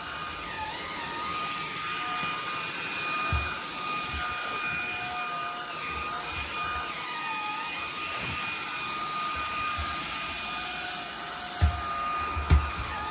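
Vacuum cleaner running steadily with a high whine whose pitch wavers up and down as the suction changes, the nozzle worked over a Shiba Inu's coat. Two short thumps come near the end.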